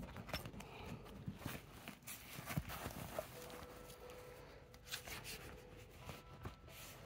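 Faint handling noise: soft rustling with scattered small taps and clicks as hands shift a faux-fur tote bag and its contents close to the microphone.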